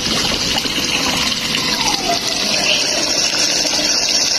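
Home-made PVC-pipe venturi for a koi pond running: a steady gush of water and bubbling as the jet drives drawn-in air into the pond surface, churning it with fine bubbles, the sign that the venturi is drawing air and aerating the water.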